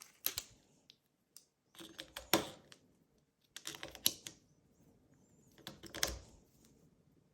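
AA batteries being pressed into the plastic battery holder of a Schlage digital deadbolt: short groups of sharp clicks and clatter about every two seconds as each cell snaps against its spring contacts.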